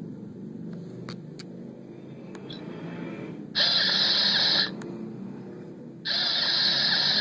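Lego Mindstorms NXT robot's motors whirring in two bursts of about a second each, a second and a half apart, over a low steady hum.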